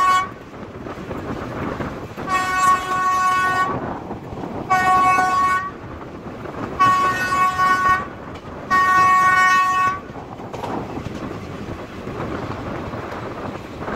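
Train horn sounding four blasts of about a second each, roughly a second apart, over the steady rumble of a moving passenger coach; the tail of an earlier blast ends just at the start, and the running rumble carries on after the last blast.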